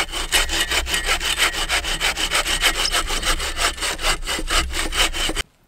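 Lightweight hand saw cutting through a dry, weathered log in quick, even strokes, several a second, stopping abruptly near the end.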